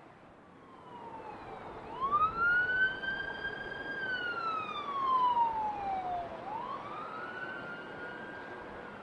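Siren wailing: the pitch climbs about two seconds in, holds high, slides slowly down, then climbs and holds again near the end.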